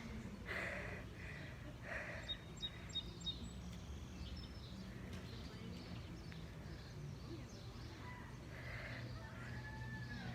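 Faint outdoor background noise: a steady low hum, with a quick run of faint high chirps about two to three seconds in and a short gliding whistle near the end.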